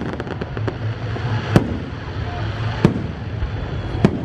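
Aerial firework shells bursting: a quick crackle of small reports at the start, then three loud bangs about a second and a quarter apart.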